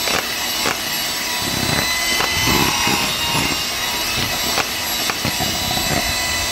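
Electric hand mixer running steadily, its two wire beaters whirring through a thick cream cheese mixture in a plastic bowl, with a few short clicks along the way.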